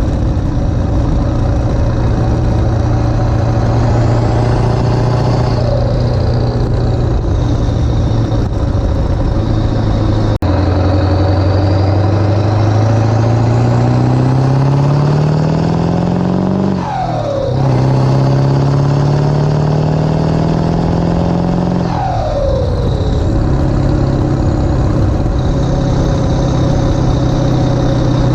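Ford 7.3 Powerstroke V8 turbodiesel pulling the truck along under acceleration: the engine note climbs steadily, falls away sharply at an upshift about two-thirds of the way in, climbs again and falls at a second upshift, then settles. A faint high whistle rises and falls with it.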